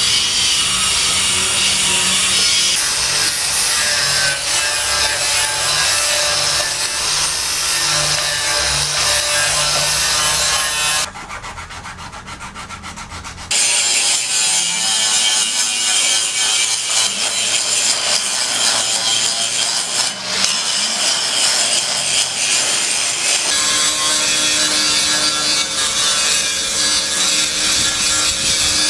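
Construction tool noise: a continuous harsh rasping of sawing-type work. It comes in several clips joined by sudden cuts, with one short, quieter stretch near the middle that has a fast, regular ticking.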